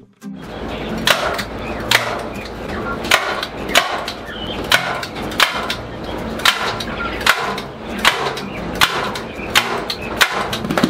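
Repeated sharp knocks at a steady pace, about one every three-quarters of a second, over a steady low rumble.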